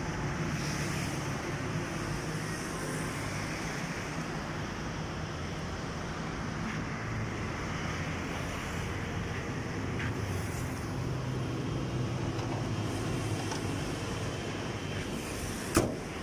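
Hyundai Santro engine idling steadily with the bonnet open. Near the end the bonnet is shut with a single loud thump.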